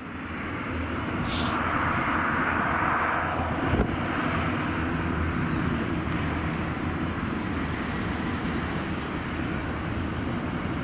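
Jet engine noise of an Airbus A319 airliner on its landing, swelling over the first two seconds and then holding steady. A single thump comes about four seconds in.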